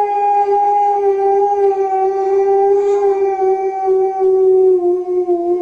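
A husky-type dog howling: one long howl held on a steady pitch, dropping slightly near the end.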